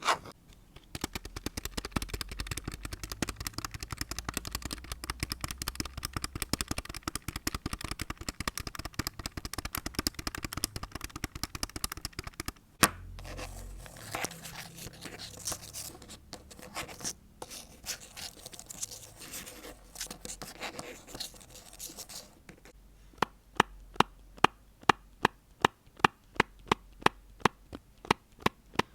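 Close-miked ASMR trigger sounds in three stretches: dense, rapid scratching and tapping, then a looser rustling scrape, then sharp, evenly spaced taps about twice a second near the end.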